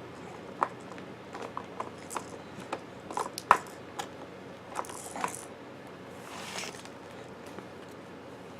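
Light, scattered clicks and knocks of hard plastic toy parts being handled and fitted together, about a dozen over the first five seconds, then a soft rustle.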